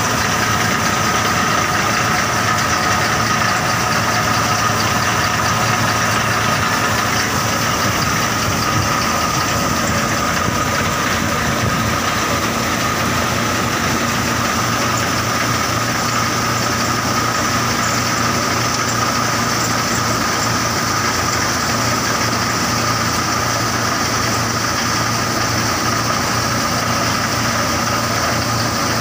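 KING belt-driven thresher running steadily while threshing, powered by a tractor engine: a constant mechanical hum of engine, belts and drum with a steady high whine.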